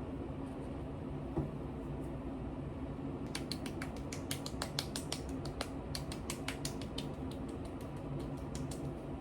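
Keys clicking in quick, uneven runs of typing on a computer keyboard, starting a few seconds in and stopping shortly before the end, over a steady low room hum.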